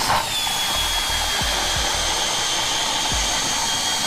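Milwaukee Fuel cordless drill driving an ice auger through lake ice: a steady motor whine over the hiss of the auger cutting, dipping slightly in pitch as it bites in at the start.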